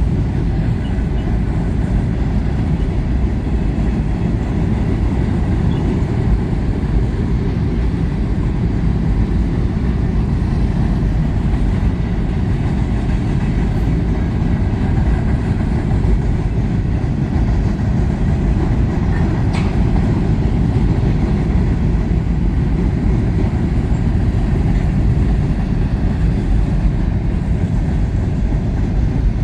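Long freight train rolling past, its cars making a steady, loud rumble that does not let up.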